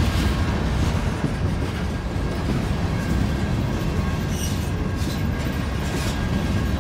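Empty covered hopper cars of a grain train rolling past close by: a steady rumble with wheels clattering over the rails.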